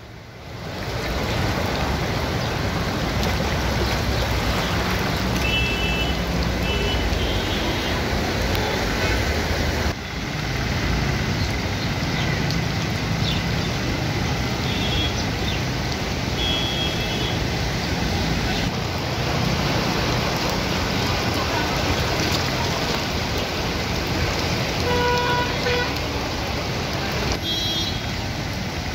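Traffic on a flooded road: a steady wash of noise with vehicle horns tooting briefly several times.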